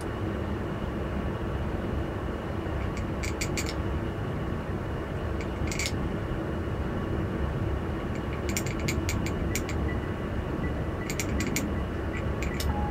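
Small sharp plastic clicks in several short clusters as Gunpla kit parts are handled and fitted with a fine tool, over a steady low hum.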